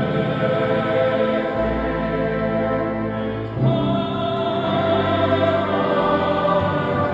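Boys' choir singing long held chords, moving to a new chord about three and a half seconds in.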